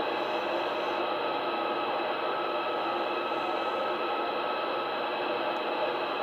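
CB radio receiver hissing with steady static on an open channel: an S7 noise level on the frequency under poor skip conditions, with a faint steady tone in the hiss.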